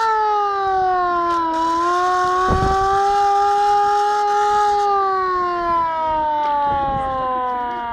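Hand-cranked mechanical siren wailing. Its pitch dips, climbs back and holds, then falls slowly through the last few seconds as it winds down. A brief low thump comes about two and a half seconds in.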